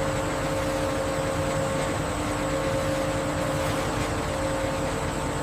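Factory processing machinery running steadily: an even mechanical hum and whir with a few constant tones.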